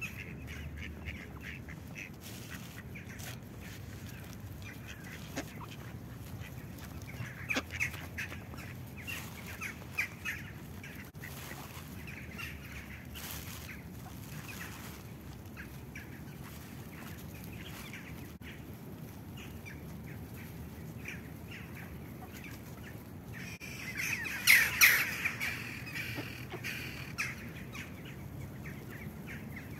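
Mallard ducks quacking: scattered short quacks, a louder run of them about a quarter of the way in, and the loudest burst of quacking near the end.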